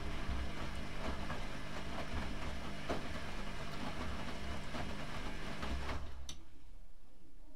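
Privileg Classic 30612 front-loading washing machine tumbling wet laundry in water: steady motor hum with water sloshing and soft knocks of the load. About six seconds in the drum stops suddenly, followed by a single click.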